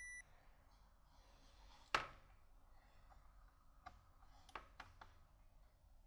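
Mostly near silence. A steady electronic beep, typical of a multimeter's continuity tester, cuts off just after the start. Then comes one sharp click about two seconds in and a few fainter clicks around four to five seconds, from hands handling wires, test probes and a connector in the controller box.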